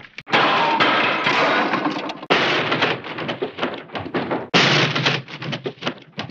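Hanna-Barbera cartoon crash sound effects: three crashes in a row, each a loud smash followed by a rattling clatter that dies away.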